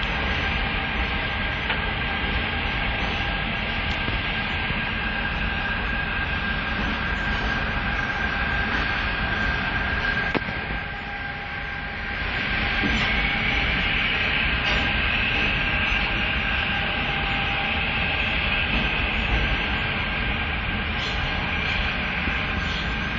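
ETS electric train passing on the track: a steady rumble with a high electric whine over it. The sound dips for about a second halfway through, then the whine comes back stronger.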